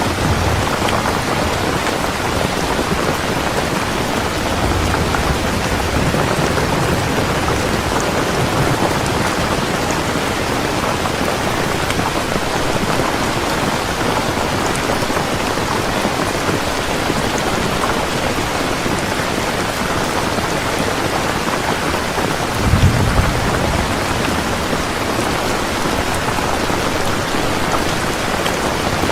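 Steady rain falling on surfaces, an even hiss of drops. A short low rumble of thunder comes about three-quarters of the way through.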